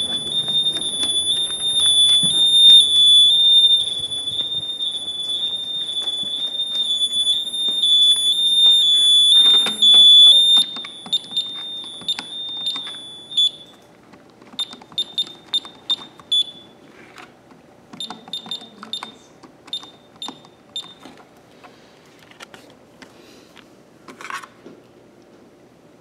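Honeywell/Ademco Vista alarm keypad's built-in sounder sounding a continuous high-pitched electronic alarm tone with a slight stepped warble: the system is in alarm on zone 4. The tone stops about halfway through as keys are pressed, and is followed by a run of short key-press beeps and button clicks.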